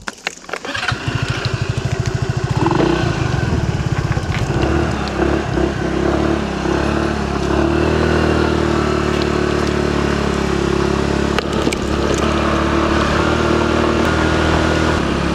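Motor scooter engine starting up about a second in, then running steadily as the scooter is ridden slowly up a rough dirt track.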